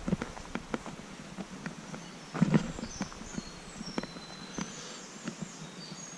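Irregular footsteps and rustling outdoors, with a louder cluster of steps about two and a half seconds in. Faint, high bird chirps come in over the second half.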